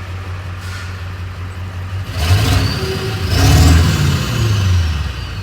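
2000 Ford F350's 7.3 Powerstroke turbo-diesel V8 running, then revved up twice, about two and three seconds in. The turbo whistle climbs with each rev and winds down slowly afterwards.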